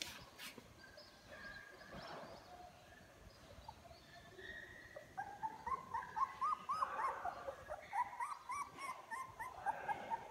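Young puppies, eyes just opening, whining and squeaking. Faint whines at first, then over the second half a quick run of short high squeals that rise and fall, several a second.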